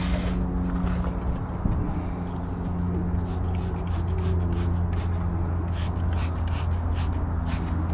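A steady low mechanical hum throughout. From about six seconds in, a handheld spray bottle squirts water in a quick run of short hisses.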